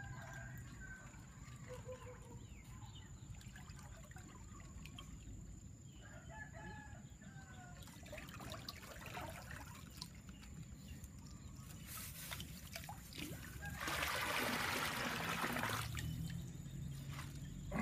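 Rooster crowing and hens clucking, with short calls scattered through the first half. Near the end, about two seconds of water splashing as water is poured out of a plastic bag into the river.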